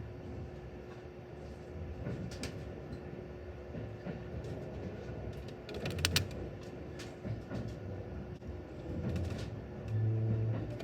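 Steady low rumble of a moving train heard from inside, with a faint steady hum, a quick run of clicks about six seconds in, and a louder low hum near the end.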